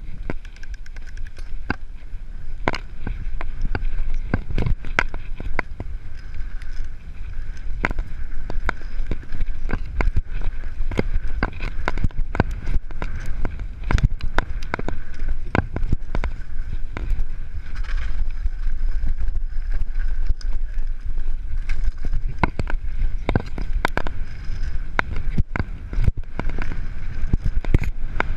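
Mountain bike riding down a dirt trail, heard from a camera mounted on the bike: the tyres' steady rumble on the dirt, with frequent irregular clatters and knocks as the bike goes over bumps, and wind on the microphone.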